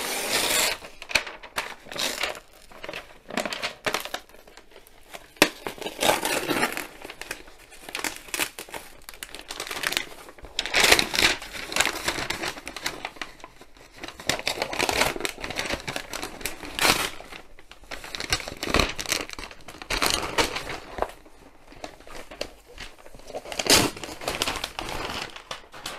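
Heavy brown kraft wrapping paper being torn and crumpled as it is pulled away from a cardboard box. The rustling comes in irregular bursts, a few of them louder than the rest.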